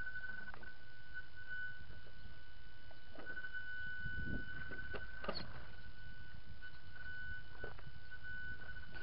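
Tamiya CC-01 radio-controlled crawler creeping over rocks: a steady high whine from its electric motor and speed controller that swells and fades with the throttle, with scattered clicks and knocks as the tyres and chassis meet the stones.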